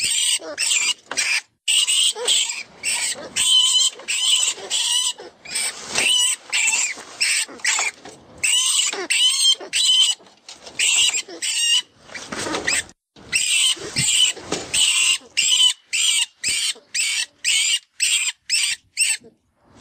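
FoxPro 'Vermin' rat distress call: a rodent squealing in distress, in quick runs of short high squeaks about two or three a second, with longer drawn-out squeals in the middle. It is a predator call, the sound of a prey animal in trouble, used to bring in foxes.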